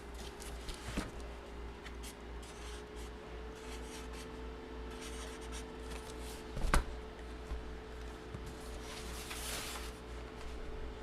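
Paper and packaging being handled and rubbed, soft rustling and scraping, with one sharp knock about two-thirds of the way through, over a steady electrical hum.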